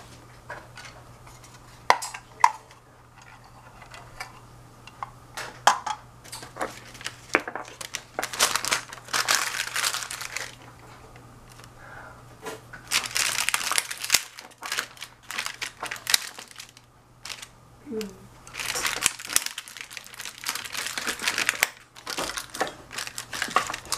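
Thin plastic bags crinkling as they are handled and stretched over glass jars, in three long bursts, with a couple of sharp knocks about two seconds in and scattered small ticks under a faint steady hum.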